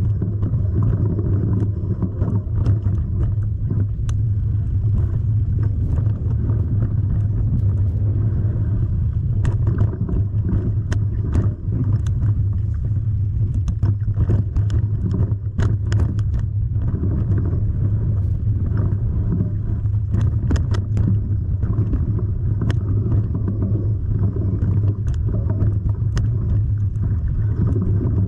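Motor vehicle engine running steadily under way, heard from on board, with frequent sharp clicks and knocks over the top.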